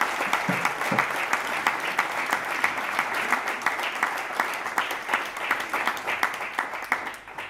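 A small audience applauding, the clapping thinning out and dying away near the end.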